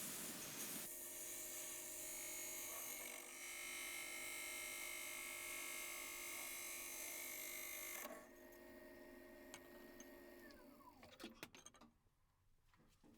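Axminster AT1628VS variable-speed wood lathe running with a steady motor whine while a parting tool hisses through the spinning holly. About eight seconds in the cutting hiss stops. Near eleven seconds the whine falls in pitch as the lathe spins down, followed by a few light clicks.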